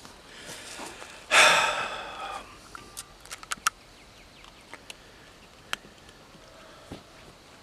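A man's loud breath out, a heavy sigh or gasp lasting about a second, followed by a few light scattered clicks and taps.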